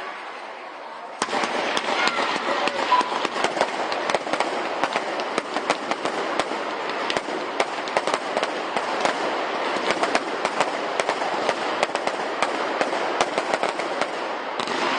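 Fireworks crackling: a dense, continuous run of many small sharp cracks that starts abruptly about a second in.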